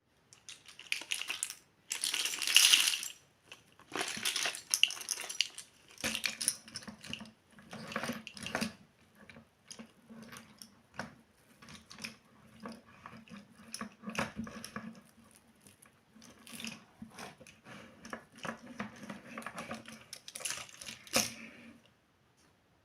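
Crinkling and rustling of plastic packaging, with clicks and light clinks of small miniature kitchen toy pieces being handled. A faint low hum runs underneath from about six seconds in until near the end.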